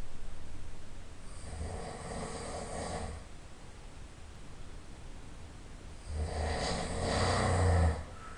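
A person snoring in deep sleep: two snoring breaths about five seconds apart, each with a low rattling vibration. The second is louder and stops abruptly near the end.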